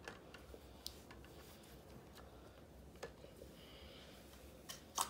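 A few faint, scattered clicks and taps from plastic syringe droppers and clear plastic cups being handled, the loudest click near the end.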